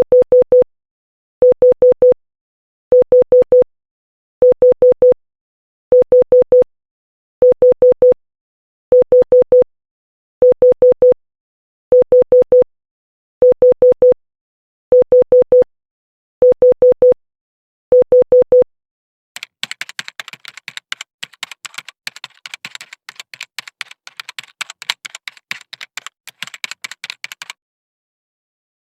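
Morse code tone sending the letter H, four short dits at one steady pitch, repeated about every second and a half. From about 19 seconds in, the beeps give way to about eight seconds of rapid, irregular clicking.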